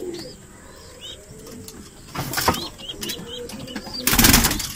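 Pigeons in a loft making small high chirping calls, with a short flutter of wings a little after two seconds and a louder burst of wing flapping about four seconds in.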